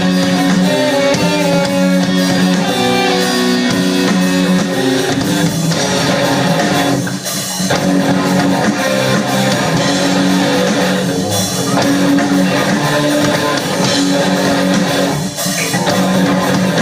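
Live rock music: guitars playing chords over drums, with brief breaks in the playing at about four-second intervals.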